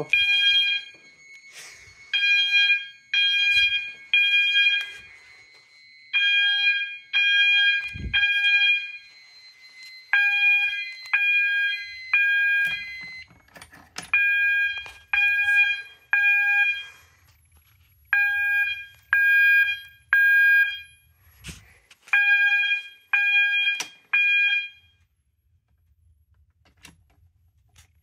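System Sensor MASS horn-strobes sounding the fire alarm on an 800 Hz tone coded temporal code-3: repeating groups of three short beeps with a pause between groups. The panel is in alarm from an activated smoke detector, and the horns stop about 25 seconds in when they are silenced at the annunciator.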